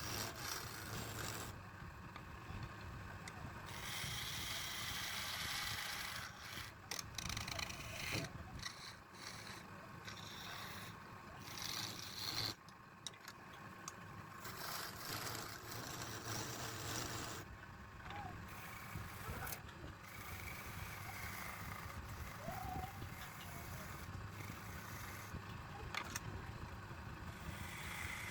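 Wood lathe running with a steady low motor hum while a turning tool scrapes and rubs against the spinning wood, the scraping changing every few seconds, with a few sharp clicks.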